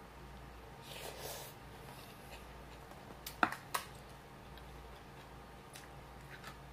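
Close-up mouth sounds of chewing a mouthful of noodles, rice and kimchi, with a soft wet burst about a second in. About three and a half seconds in come two sharp clicks of utensils, a wooden spoon set into a glass bowl and metal chopsticks taken up, followed by a few faint ticks.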